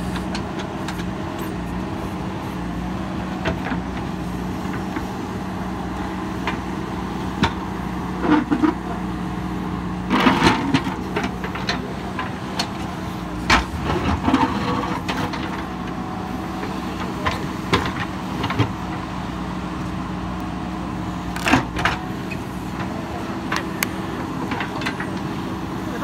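JCB 3DX backhoe loader's diesel engine running steadily under load as the backhoe works, with intermittent sharp clanks and scrapes from the steel bucket and arm. The clanks are loudest in clusters about ten seconds in and again a little over twenty seconds in.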